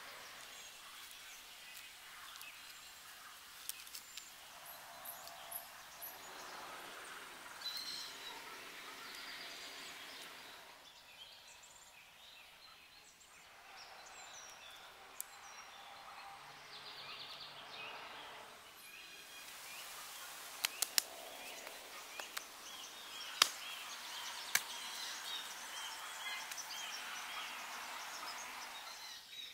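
Outdoor forest ambience: a steady hiss with occasional bird chirps, under close handling noises of sticks being lashed with cord and mud being worked by hand. There are a few sharp clicks in the second half.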